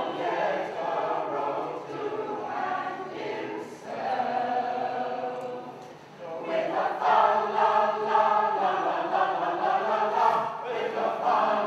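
Community choir of men and women singing unaccompanied, with a short break between phrases about six seconds in, after which the singing comes back louder.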